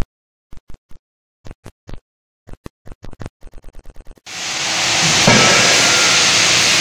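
A run of short synthetic clicks that come faster and faster, then about four seconds in a sudden switch to loud, steady hissing noise from a drop forging hammer shop.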